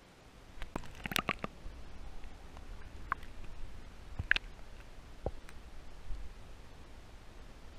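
Underwater sound through a GoPro's waterproof housing as it is moved about in a pond: a low rumble of water movement, with a quick cluster of clicks and knocks about a second in and a few single clicks later.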